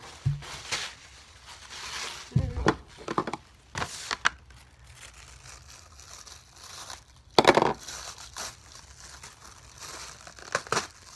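Cut-up plastic bag scraps and paper crinkling in irregular bursts as they are stuffed and pressed into a folded paper pouch, the loudest rustle about two thirds of the way through.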